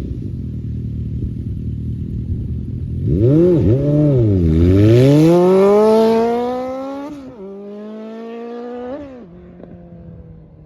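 Suzuki Bandit 1250's inline-four engine blipped twice, then accelerating hard with a long rising pitch and shifting up twice, about seven and nine seconds in. It grows fainter as the bike pulls away.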